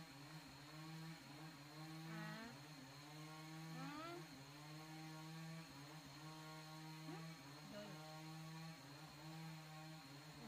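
A faint, steady hum holding one low pitch, with a few brief rising whines about two and four seconds in.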